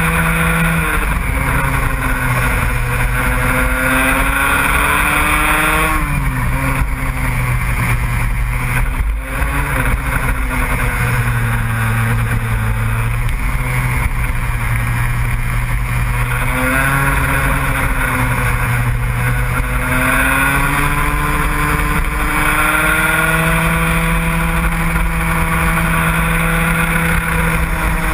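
A motorsport vehicle's engine runs hard without a break. Its pitch climbs and falls back again several times as it accelerates and eases off.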